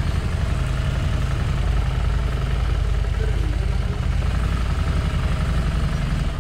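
Harley-Davidson Street Rod 750's liquid-cooled V-twin running at idle with a steady, even low rumble while the bike creeps at walking pace.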